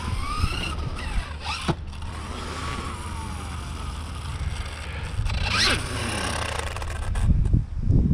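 Tekno MT-410 electric RC monster truck's brushless motor whining, its pitch rising and falling as the throttle is worked, with a sharp rev up and back down about five and a half seconds in. Wind rumbles on the microphone throughout and gusts harder near the end.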